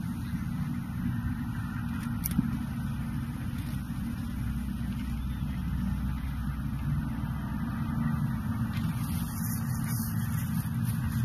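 Steady low rumble of wind buffeting the camera microphone, with a brief sharp click about two seconds in.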